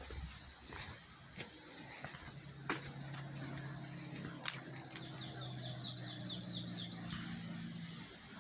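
A bird sings a rapid trill of high, falling notes, about two seconds long, starting about five seconds in. Under it runs a low steady hum, with a few sharp clicks.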